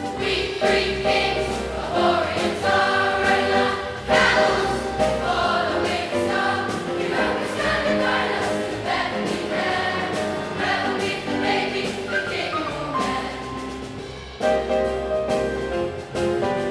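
A large school choir of young voices singing together.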